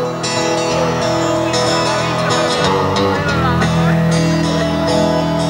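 Live country band playing: an acoustic guitar strummed with bass and electric guitar, holding sustained chords, with one note bending down and back up in pitch about three seconds in.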